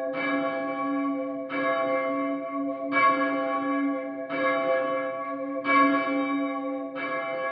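A church bell hung for full-circle change ringing, swinging on its wheel and headstock. It strikes six times, about one and a half seconds apart, and each stroke rings on into the next.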